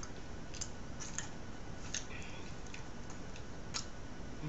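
Light, irregular clicks and taps of a metal fork against a ceramic plate as a grilled fish is picked apart, about two or three a second over a steady background hiss.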